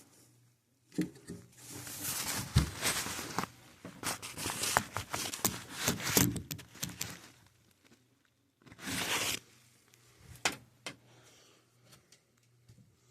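Rustling, scraping and crinkling of something being handled, in a dense irregular stretch of several seconds, then a shorter burst and a couple of sharp clicks near the end.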